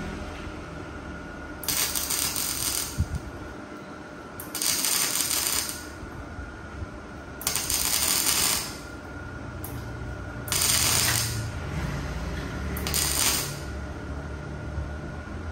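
Five short bursts of welding crackle, each about a second long and a few seconds apart, as tack welds are laid on the frame. A steady faint high whine and low hum run underneath.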